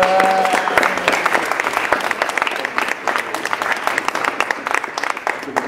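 Audience applauding, a dense patter of many hands clapping that is loudest at the start and eases off slightly toward the end.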